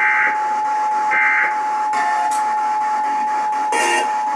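Emergency Alert System attention signal from an FM radio station's monthly test: a steady two-tone alarm just under 1 kHz that cuts off near the end. Two short buzzy bursts of EAS digital data tones sound over it in the first second and a half.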